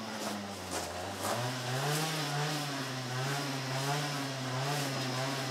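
An engine running in the background, its pitch slowly wavering up and down, with a few faint clicks.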